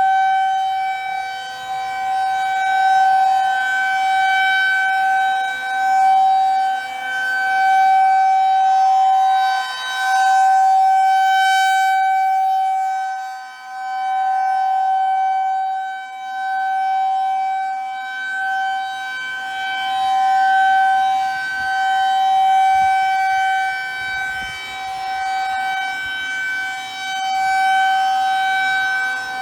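Federal Signal 2001 rotating outdoor warning siren sounding its steady test tone: one held pitch with no rise or fall. The loudness swells and fades every few seconds as the rotating horn sweeps toward and away from the listener.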